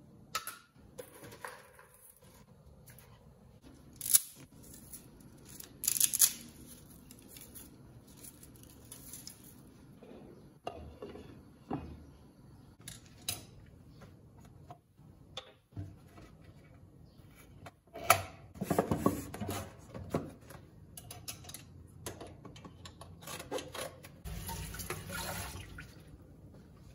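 Kitchen chores: dishes and utensils knocking and clinking now and then, with a few short stretches of splashing or rushing noise, the loudest a little after a third of the way in and again about two-thirds of the way through.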